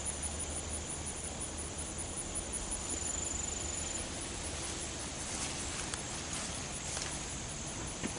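Outdoor ambience of insects calling: a high, thin, steady trill that stops about halfway through, over a rapid, even, very high pulsing chirp that goes on throughout. A few faint clicks in the second half.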